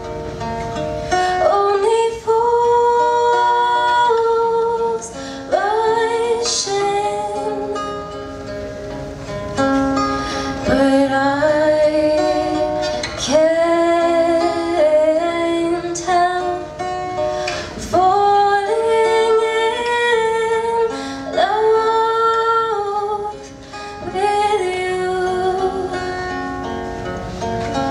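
A woman singing a song, accompanied by an acoustic guitar.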